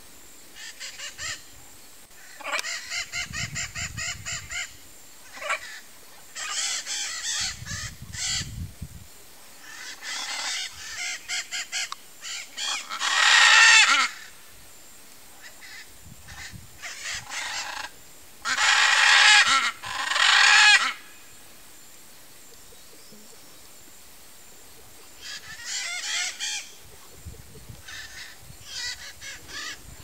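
Blue-and-yellow macaws squawking in repeated bouts, some as quick rattling series. The loudest, longest calls come about halfway through and again around two-thirds in, then a few seconds' pause before shorter squawks near the end.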